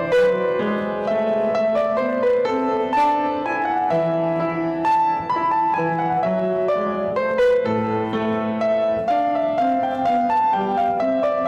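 Instrumental music: a flowing melody of struck or plucked notes over lower bass notes, with a new note starting every fraction of a second.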